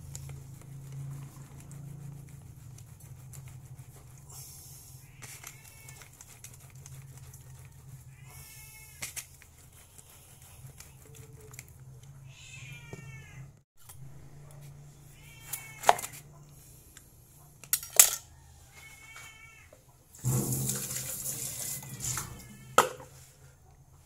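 A cat meowing again and again, short curving calls a few seconds apart, over a steady low hum. A few sharp knocks come from things being set down on the counter, with a brief rush of noise shortly before the end.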